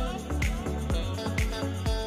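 Background music with a steady beat of about two thumps a second.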